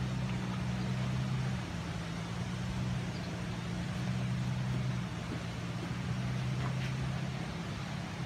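A steady low mechanical hum under an even background hiss.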